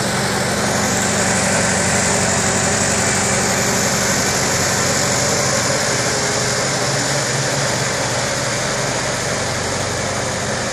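Engine of a small McCormick Farmall tractor running steadily at low speed as the tractor drives along.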